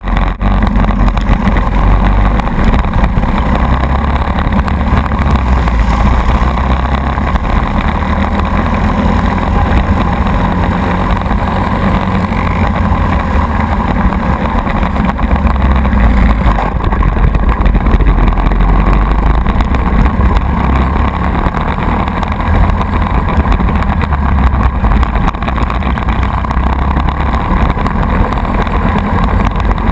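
A racing kart's Briggs & Stratton Animal single-cylinder four-stroke engine running loud and steady, heard from a camera mounted on the kart.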